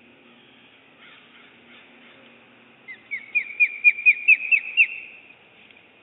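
Bald eagle giving its alert call: a quick run of about ten short, high, piping notes, each sliding down, over about two seconds starting some three seconds in.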